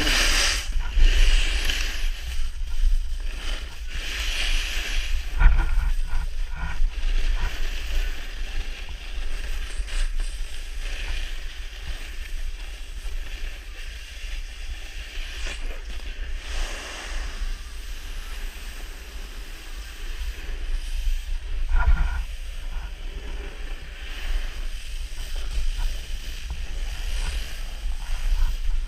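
Wind rumbling on a pole-mounted action camera's microphone while a snowboard slides and carves over groomed snow, its edge scraping in repeated swells of hiss, with a couple of short knocks from the board.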